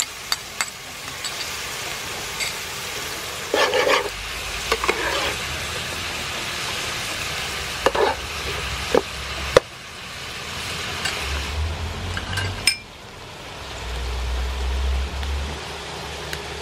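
Shellfish stir-fry sizzling in a frying pan while a spatula stirs it, with scrapes and knocks of the spatula against the pan. Near the end the stirring and knocking stop, leaving a quieter steady noise.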